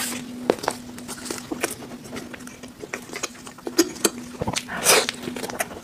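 Close-up chewing of a soft black sesame cream bun: irregular wet mouth clicks and squishing, with a few sharper smacks. A faint steady hum runs underneath.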